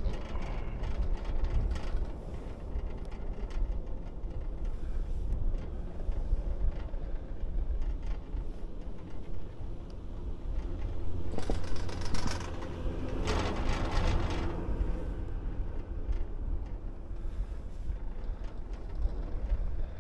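Wind buffeting the microphone over a steady low rumble on a moving detachable six-seat chairlift (Doppelmayr, 2008). A little past halfway a louder whirring rush comes in two waves as the chair passes under a lift tower's sheaves.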